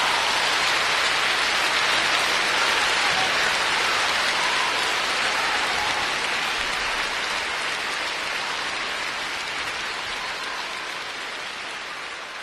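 Large concert-hall audience applauding, a dense, steady clapping that slowly dies down over the last few seconds.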